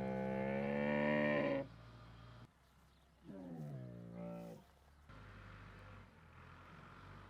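Camel bellowing: one long, loud call that cuts off about a second and a half in, then a second, shorter call with a falling pitch a couple of seconds later.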